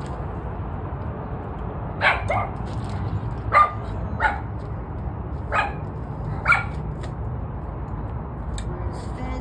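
A dog barking: six short single barks, two close together about two seconds in and the rest spaced a second or so apart, over a steady low background rumble.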